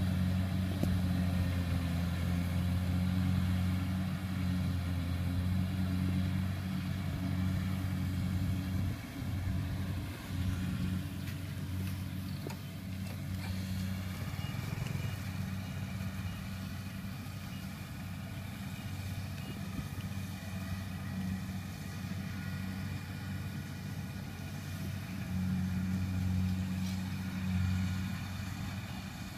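Kubota rice combine harvester's diesel engine running steadily, a low even drone that eases off about a third of the way in and swells again near the end.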